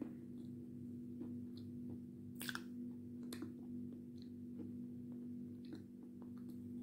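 Soft, scattered wet mouth clicks and smacks of a mouthful of edible clay being savoured with the lips closed, with one sharper click about two and a half seconds in, over a steady low hum.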